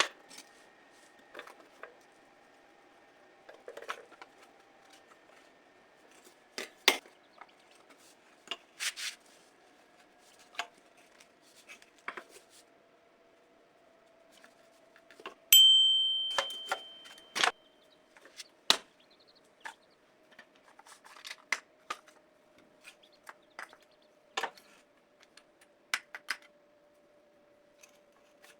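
Irregular light clicks and knocks of small hard objects being handled, with one sharp, ringing clink about fifteen seconds in. A faint steady hum runs underneath.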